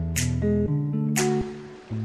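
Background music: plucked notes over a bass line, with a sharp high percussive hit about once a second.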